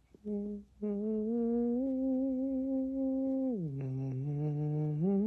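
A man humming a slow tune in long held notes. A short note comes first, then a long one that steps slightly higher. The tune drops to a low note about three and a half seconds in and climbs back near the end.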